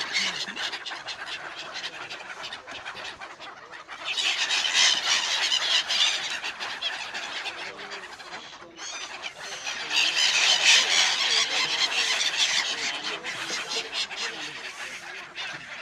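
A large flock of migratory winter birds calling at once, many overlapping shrill calls that swell twice: about four seconds in and again about ten seconds in.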